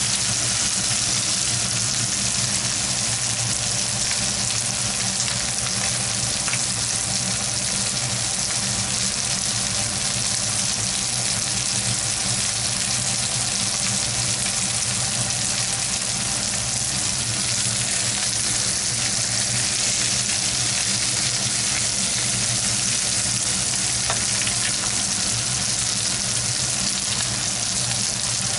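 Hamburg steak patties sizzling steadily in hot fat in a frying pan, with a faint steady low hum beneath.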